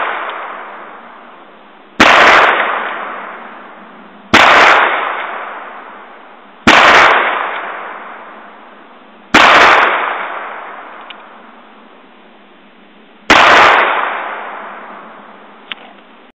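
Ruger Single Six revolver firing .22 Magnum full metal jacket rounds: five shots spaced about two to four seconds apart, each a sharp crack followed by a long echo dying away over a couple of seconds. A faint click comes near the end.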